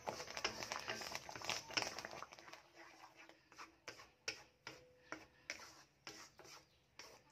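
Wooden spatula scraping and knocking against a non-stick wok while stirring thick, cooking sago pearls. The strokes come thick and fast for the first couple of seconds, then as separate clicks and scrapes a few times a second.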